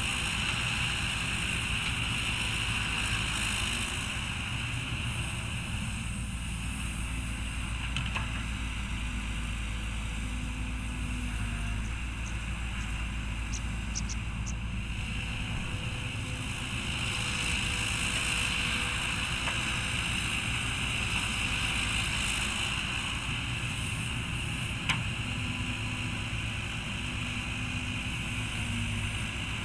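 Caterpillar 312B hydraulic excavator's diesel engine running steadily while it digs and loads soil, with a single sharp knock near the end.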